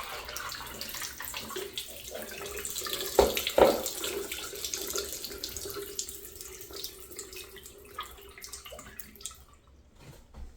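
Miniature open-rim toilet flushing: water running and splashing through the small bowl in a steady hiss, with two knocks a few seconds in, thinning out near the end. The flush is sluggish, which the owner thinks may mean it is stopped up on something.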